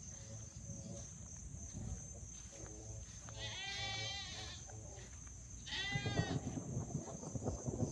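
Goats screaming: a loud, wavering bleat about three and a half seconds in and a shorter one about six seconds in, with fainter bleats before them.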